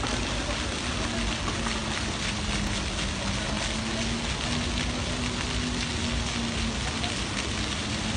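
Rows of small fountain jets spraying up and splashing back into a shallow pool, a steady hiss of falling water.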